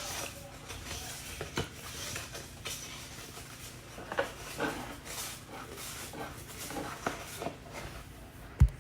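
Cardstock and paper being handled and rubbed for card-making: irregular rustling with scattered light taps, and a single low thump near the end.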